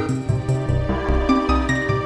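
Background music with a moving bass line and a steady beat.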